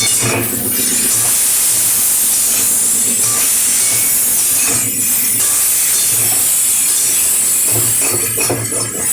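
Mixed vegetable curry with spices sizzling steadily in hot oil in a pan, with a little water just added.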